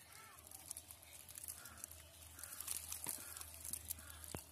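Faint wet rustling and crackling of live tilapia being handled in a fishing net, with a sharp click near the end.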